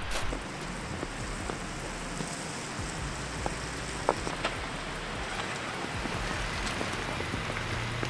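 Steady hiss and patter of heavy, wet snow falling, with scattered light ticks of flakes striking.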